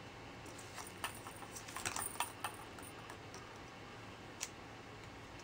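A cat batting a plastic ball-track toy: a quick run of light plastic clicks and rattles lasting about two seconds, then one more click a little later, over a steady hiss.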